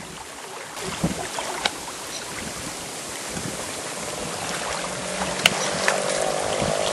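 Steady rushing noise of wind and choppy water across open water, with a few faint clicks.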